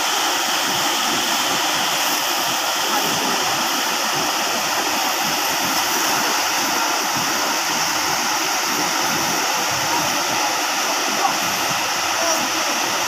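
Steady rushing of a fast, muddy river running over and around boulders in white-water rapids.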